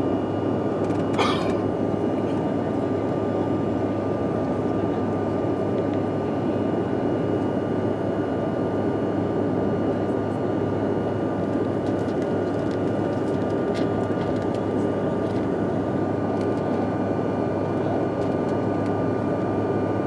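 Steady rushing cabin noise of a jet airliner in flight, made of engine and airflow noise with a faint steady high whine from the engines, and a brief click about a second in.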